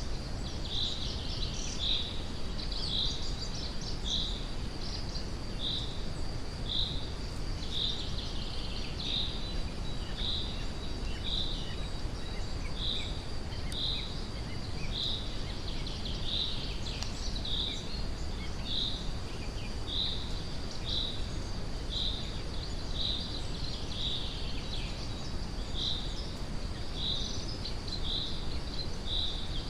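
Steady brown-noise rumble under forest birdsong. One high chirp repeats evenly about once a second over scattered fainter calls.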